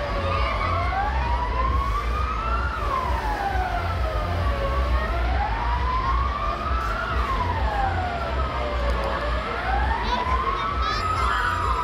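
A siren-like wail rising and falling slowly, about once every four to five seconds, over a steady low rumble.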